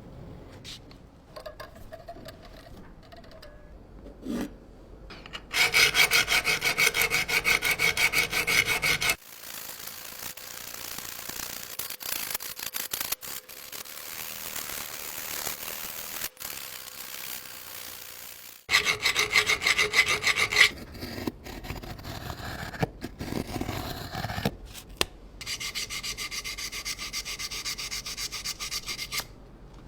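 A blade being sharpened on an abrasive surface: runs of quick back-and-forth scraping strokes, three times, with a steadier hissing rub between the first and second runs.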